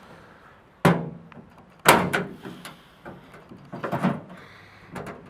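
About six sharp, irregularly spaced metallic knocks and snaps, loudest about one and two seconds in, as a small snippet of sheet steel is cut and worked free from a Chevrolet C10's door bottom.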